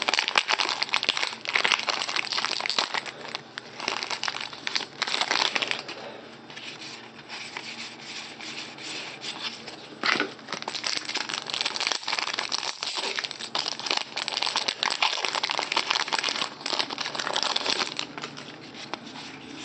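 Foil wrapper of a Fleer Platinum basketball card pack crinkling and tearing as it is opened by hand, in irregular bursts of crackle.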